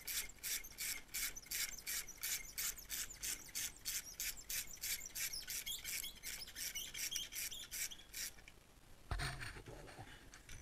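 Hand ratchet wrench clicking steadily, about four clicks a second, as a fairing bolt is backed out; the clicking stops about eight seconds in, and a single short knock follows about a second later.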